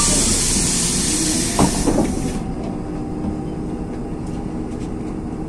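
Compressed air hissing from the LiAZ 6213.22 bus's pneumatic system for about two and a half seconds, then cutting off, with a few short squeaks near the end of the hiss. The bus's steady low hum runs underneath.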